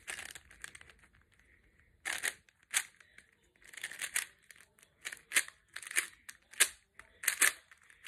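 Plastic Rubik's cube being turned by hand: irregular clicking and rattling of its layers, in quick runs of turns from about two seconds in.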